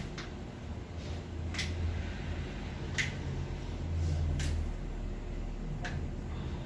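A sharp click repeating evenly about every second and a half, five times, over a low steady hum.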